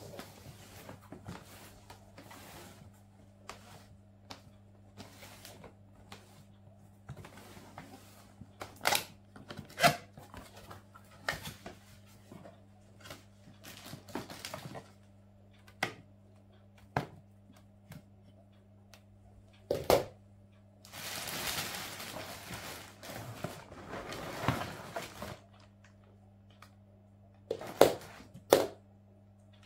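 Hands unpacking a cardboard box: flaps and packed parts give scattered knocks and scrapes, and plastic wrapping rustles for a few seconds about two-thirds of the way through. Two sharp knocks come near the end, over a steady low hum.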